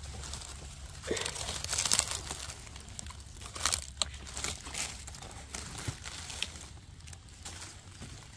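Dry leaf litter on the forest floor rustling and crackling in irregular bursts, loudest about one to two seconds in and again around four seconds.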